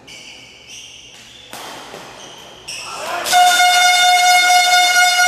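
A few short pitched notes at changing pitches, then a loud, steady, horn-like tone starts about three seconds in and holds.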